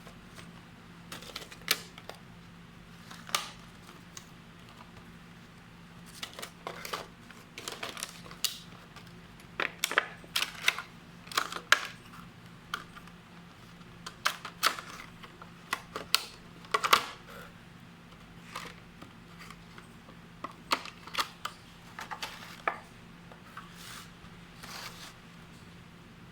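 Hard plastic parts of a wireless doorbell being handled: irregular clicks, taps and small knocks, several close together at times. No chime sounds.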